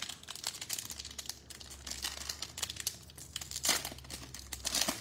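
Foil wrapper of a Panini Rookies & Stars football card pack being torn open and crinkled by hand: irregular crackling with a couple of louder bursts near the end.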